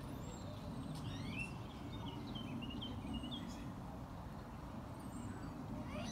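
Cotton-top tamarins giving short, high-pitched chirps, a quick run of them from about one to three and a half seconds in, over a low, steady background murmur.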